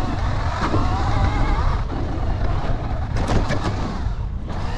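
Surron Storm Bee electric motocross bike being ridden: a whine from the electric motor and drivetrain rises and falls with the throttle, over a heavy low rumble of wind on the microphone. A few sharp knocks come from bumps about three seconds in.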